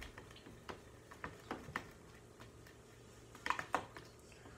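A teaspoon stirring glue and borax activator in a plastic tub, giving a few light, scattered clicks and taps against the tub, with a quick pair of clicks about three and a half seconds in.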